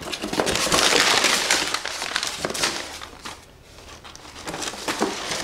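Crinkling and rustling of packaging as books are rummaged for and handled. It is busiest for the first two or three seconds, dies down in the middle, and picks up again near the end.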